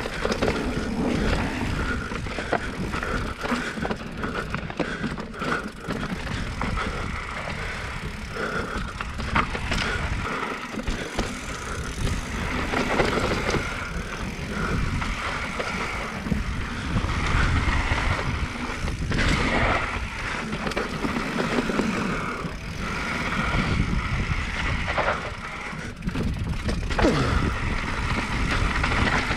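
Mountain bike descending a dusty, rocky downhill trail: a continuous rumble and rattle of tyres and bike over dirt and rock, with scattered sharp knocks from impacts.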